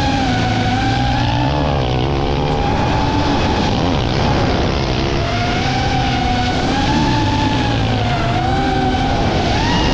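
Kawasaki motocross bike engine revving up and down through the turns, its pitch rising and falling continually.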